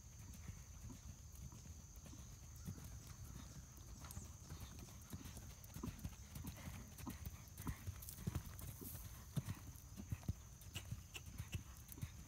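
Hoofbeats of a cantering grey horse on sand arena footing, a stream of dull thuds that grows louder in the second half as the horse comes nearer.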